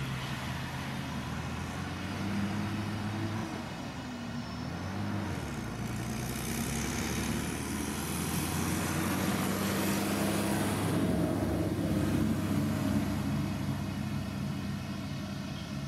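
Farm tractor engine running while it works a mounted round-bale wrapper, its pitch rising and falling as the engine load changes. A hissing noise comes in around the middle and fades again.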